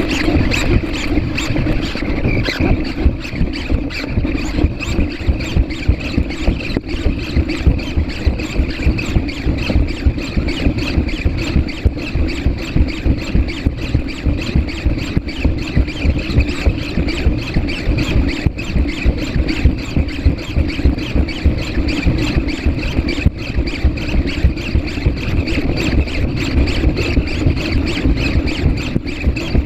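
Servo motors of a PhantomX hexapod robot whining steadily with rapid ticking as it walks.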